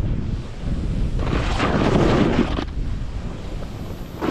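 Snowboard scraping across crusted snow, with a louder, longer scrape from about one second in to nearly three seconds; the crust is the sign that the snow is hard and not soft powder. Wind rumbles on the microphone underneath.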